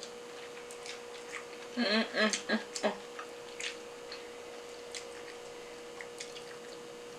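Close-up eating sounds of chewing sushi: scattered soft, wet mouth clicks, with a short burst of pitched humming, like an 'mmm' of enjoyment, about two seconds in. A faint steady hum sits underneath.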